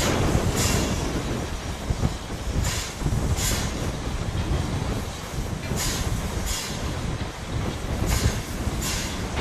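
Steam locomotive working slowly, its exhaust giving hissing chuffs in pairs every two to three seconds over a low rumble of the running gear.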